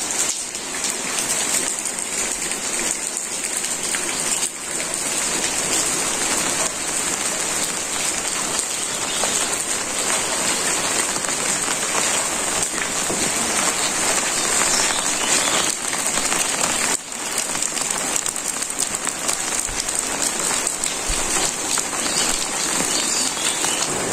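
Steady rain falling, an even hiss of drops on surfaces that dips briefly twice.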